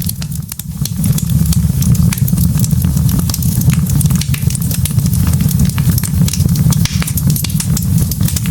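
Wood fire of burning logs crackling, with many sharp pops and snaps over a steady low rumble. The rumble dips briefly about half a second in.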